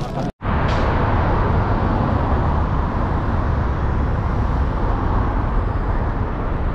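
Steady outdoor street noise of road traffic with a heavy low rumble. The sound cuts out for a moment just after the start.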